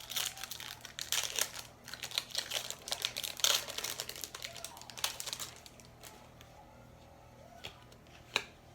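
Plastic foil wrapper of a pack of trading cards being torn open and crinkled for about five seconds, then a few single light clicks as it settles.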